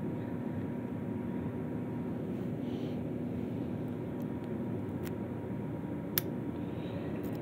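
Steady low background hum, like room or fan noise, with a few light clicks and one sharper click about six seconds in.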